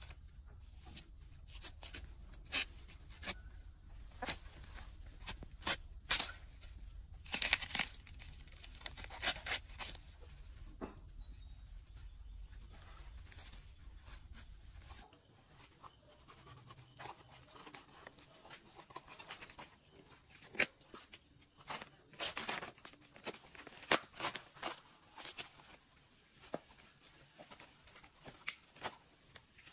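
Footsteps on dry forest litter: scattered cracks and rustles of leaves and twigs underfoot, loudest about seven seconds in. Under them runs a steady high insect drone.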